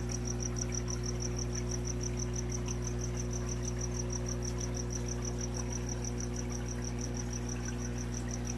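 Steady low electrical hum of the fish room's aquarium equipment, such as pumps and filters, with a high-pitched chirp repeating evenly about six times a second over it.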